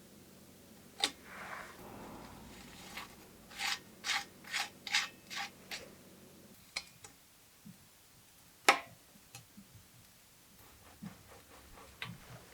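Hand work on a bicycle part: a click, then a run of about seven short, quick rubbing or scraping strokes, and later a single sharp click with a few small ticks.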